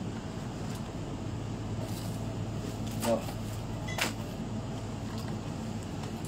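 Steady low hum of supermarket refrigerated display shelves, with a few small clicks and rustles of packaged groceries being taken off the shelf; the sharpest click comes about four seconds in.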